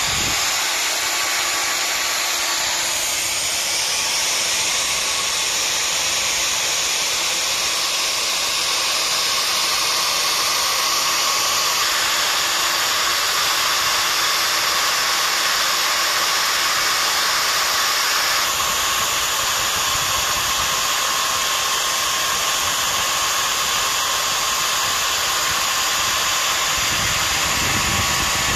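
Electric grinder fitted with a homemade paper cutting disc, running at speed and grinding into a Xiaomi (Mi) smartphone's plastic and metal body: a loud, steady, hissing grind with a thin motor whine, its tone changing a few times.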